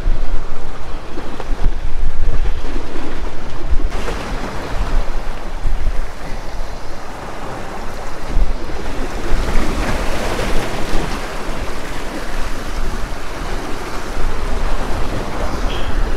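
Small waves washing and splashing against the granite boulders of a rock jetty, with wind buffeting the microphone. The surf swells louder about ten seconds in.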